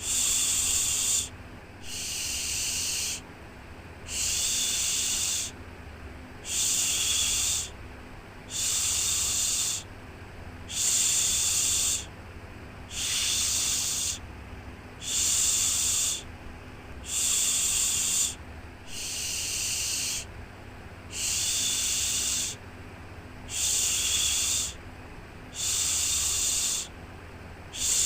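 Rhythmic 'shhh' shushing for soothing a baby to sleep: a hissing shush about a second long, repeated roughly every two seconds, over a faint steady low hum.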